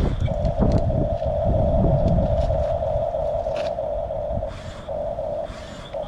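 Huina 1569 RC bulldozer running: a steady whine from its drive, with low rumbling knocks through the first couple of seconds. The whine drops out briefly twice near the end.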